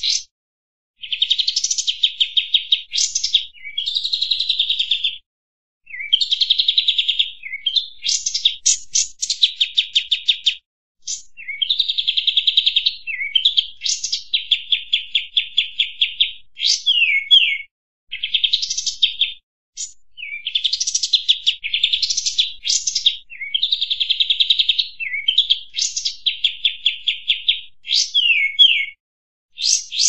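Kapas tembak, a bulbul, singing loudly in phrases of one to three seconds with short pauses between them. The phrases mix rapid rattling trills with quick rising and falling whistled notes.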